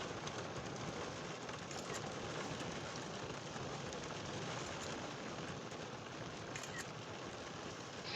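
Steady rain falling in a thunderstorm shower, an even hiss.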